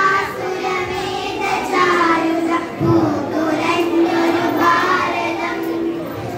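A group of young girls singing a Malayalam patriotic song (deshabhakti ganam) together.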